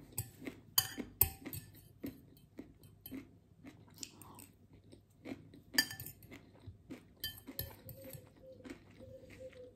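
Close-mic eating sounds from a poke bowl: chewing and crunching, with a metal fork clinking and scraping against a glass bowl in a string of sharp ticks, loudest about a second in and again about six seconds in.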